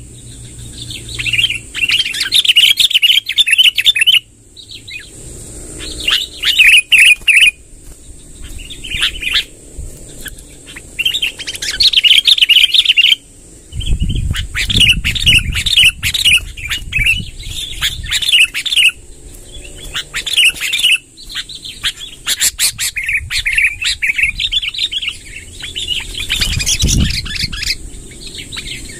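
Sooty-headed bulbul (kutilang) singing a long, rolling song: fast bursts of chirps in phrases of a second or more, separated by short pauses, played as a lure call for wild bulbuls. A low rumble comes in about halfway through and again near the end.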